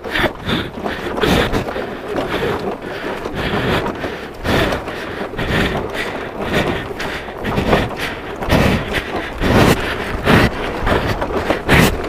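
A crash-damaged scooter being pushed over a stony dirt path: its broken body rattles and knocks irregularly over the rocks, with crunching on gravel.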